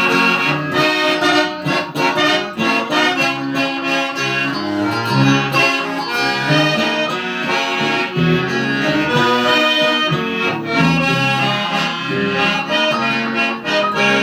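Instrumental break of a regional folk song: accordion playing the melody over strummed acoustic guitar, no singing.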